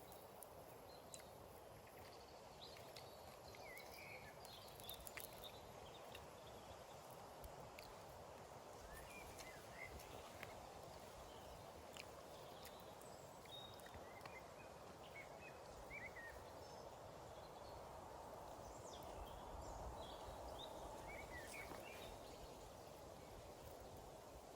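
Quiet forest ambience: a steady soft hiss with faint, brief bird chirps scattered through it and a few light clicks.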